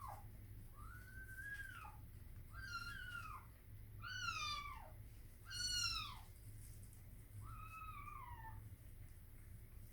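A cat meowing about five times, each call rising and then falling in pitch, the two in the middle loudest.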